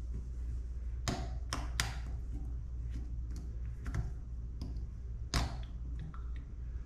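A few scattered sharp clicks and taps of a small plastic faucet aerator being worked loose from the spout with an aerator tool, over a low steady hum.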